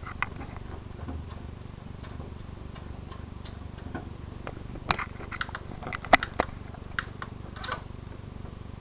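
Scattered small clicks and taps of fingers working the exposed tape-loading mechanism of a Sanyo VHR 2250 VCR, more of them from about five seconds in, over a steady low hum.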